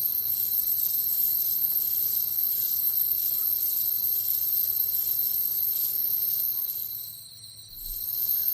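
Night insect chorus of crickets: a steady high-pitched trill over a pulsing, shimmering hiss. It fades down briefly about seven seconds in and swells back.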